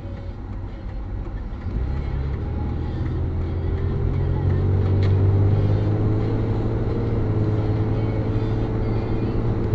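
Car engine heard from inside the cabin through a dash cam's microphone, pulling away from a stop and accelerating: a low drone comes in about two seconds in and the engine note climbs gradually, then holds steady.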